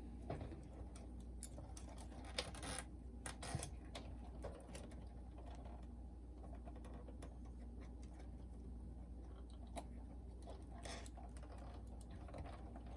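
Faint, scattered clicks and scrapes of a boombox's cassette deck and its connectors being handled during disassembly, over a steady low hum.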